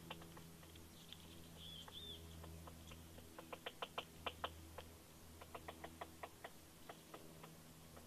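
Woodpecker pecking at a pine branch in short runs of quick, sharp taps, about seven a second, as it hunts for insects. A short bird call comes near two seconds in.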